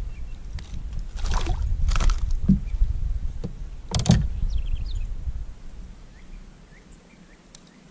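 Low rumble with a few knocks and scrapes aboard a fishing kayak, about one and a half, two and four seconds in, with faint high chirps; it goes quieter after about five seconds.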